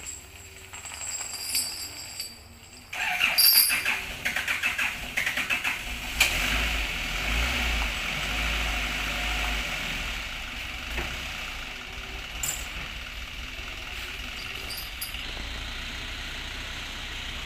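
A sudden burst of fast clattering rattle about three seconds in, then a heavy truck's diesel engine running steadily with a low rumble.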